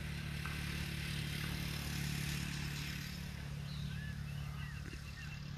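An engine running steadily nearby, a constant low hum, with a few short bird chirps about four seconds in.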